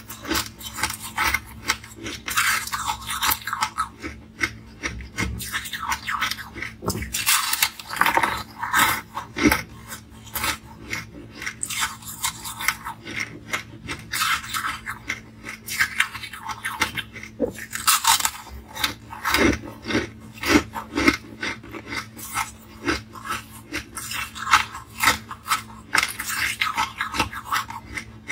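Ice being crunched and chewed close to a clip-on microphone. Bouts of rapid cracking as the pink-and-white ice breaks between the teeth alternate with quieter grinding and chewing.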